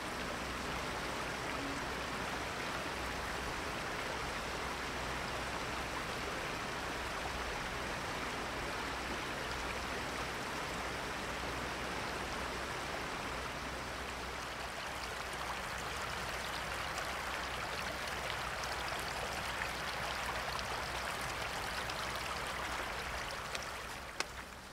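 Shallow mountain stream running over stones, a steady rushing that fades out near the end.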